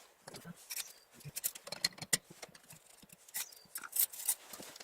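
Irregular clicks and knocks of metal engine parts being handled, with the loudest knocks about two seconds in and near the end, as the cylinder barrels are worked down over the pistons of a Yamaha XS650 engine.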